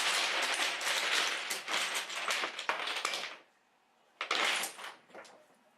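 Wooden building blocks clattering as they tumble and knock against each other in a collapsing tower: a dense run of rapid clacks for about three seconds, then after a short pause a briefer clatter near the end.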